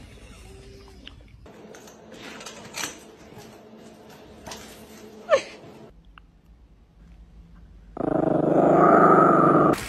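A small dog, a Yorkshire terrier, growling steadily for about two seconds near the end, the loudest sound here.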